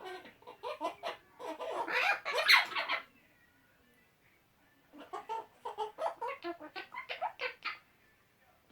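Male eclectus parrots chattering with silly noises: a bout of rapid, choppy calls, a pause of about two seconds, then a second bout.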